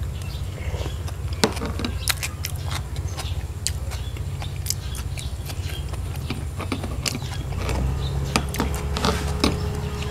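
A person chewing food close to the microphone: irregular wet clicks and smacks of the mouth, over a steady low hum.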